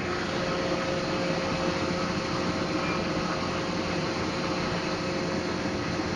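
Steady roar of aircraft and ground machinery on an airport apron, with a faint steady hum running through it.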